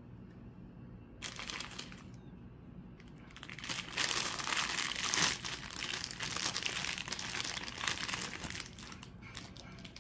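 Clear plastic packaging crinkling as a fabric ukulele strap is handled and pulled out of its sleeve. A short crinkle comes about a second in, then a longer, louder stretch of crinkling runs from about three and a half seconds to near the end, tailing off.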